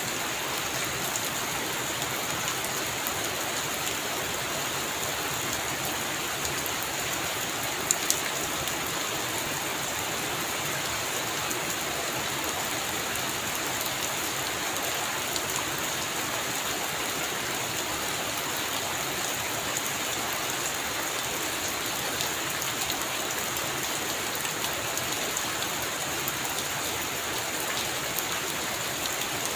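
Heavy rain falling steadily, an even hiss of drops, with a single sharp click about eight seconds in.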